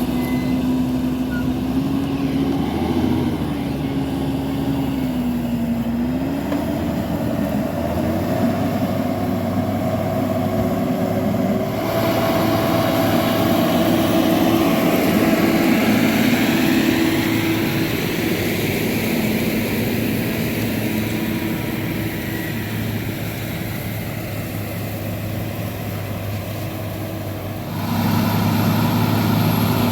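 John Deere 7430 Premium tractor's six-cylinder diesel engine working under load while pulling a slurry tanker with injectors. Its pitch wavers up and down over the first several seconds, and the sound shifts abruptly twice, about twelve seconds in and near the end.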